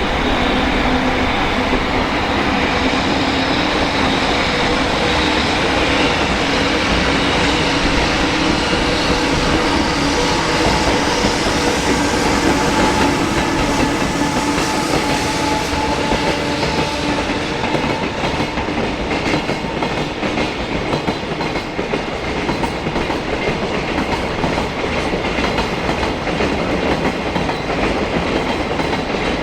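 Container freight train passing: a continuous rumble of steel wheels, with steady tones in the first half and a regular clickety-clack over rail joints that stands out more in the second half.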